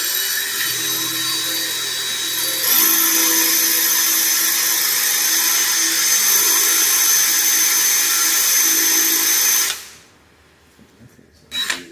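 Electric drill with a titanium bit drilling out a seized bolt, its motor whine stepping up in speed about three seconds in and stopping suddenly near the end, followed by a couple of light knocks.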